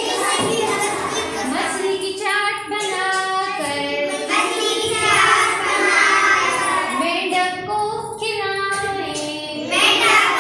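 A class of young children singing a rhyme together in chorus, phrase after phrase with short breaks between.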